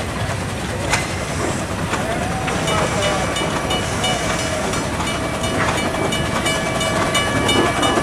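Open-sided passenger rail car running along its track, with a steady rumble and a high whine that sets in about three seconds in and holds.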